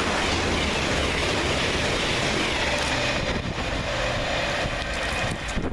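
Two coupled CrossCountry Voyager diesel-electric units, a Class 220 and a Class 221, running past on the line with a steady rush of wheel and engine noise that fades after about three seconds as they draw away.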